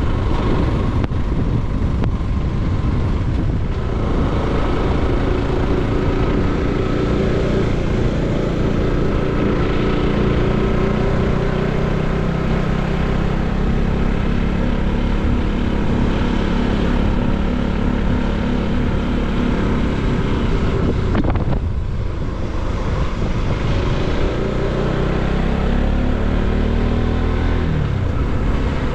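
Bajaj Pulsar NS200's single-cylinder engine running while riding. Its note eases off briefly a little over twenty seconds in, then rises in pitch as the bike accelerates.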